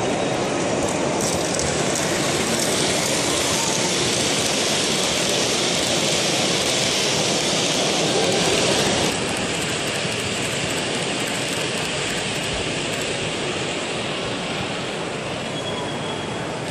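Model trains running on a Märklin layout, a steady rolling rumble of wheels on track, over the even hubbub of a busy exhibition hall. The sound eases a little about halfway through.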